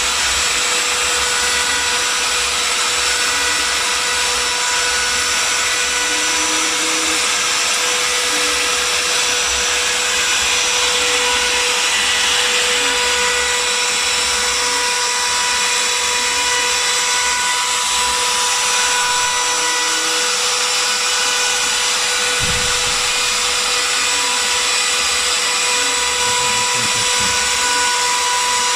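Spindle of a home-built CNC router running steadily at high speed while cutting, a constant whine with several steady tones.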